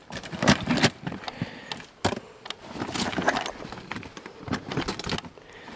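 Irregular scuffing, rustling and sharp clicks as a dead Sitka blacktail deer is pulled by the head and shifted over loose, broken rock, with clothing rustling and stones knocking.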